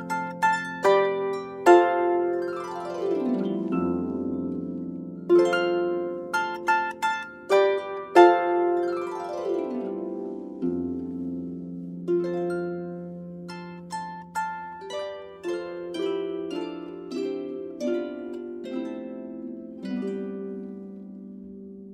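Solo harp playing a slow piece: single plucked notes ringing out over sustained bass notes, with a downward glissando sweep twice, about three seconds in and again near the middle.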